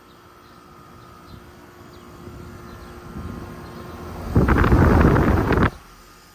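A 2024 Lennox Elite 3.5-ton air conditioner's outdoor unit running: a steady hum from the compressor and ECM condenser fan motor with a couple of fixed tones, slowly growing louder. About four seconds in, a loud burst of rushing noise drowns it for over a second and cuts off suddenly.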